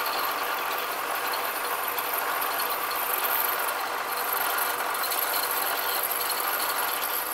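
DoALL vertical band saw running, its blade cutting through a thick block of 7075 aluminum: a steady, even, mostly high-pitched sawing noise.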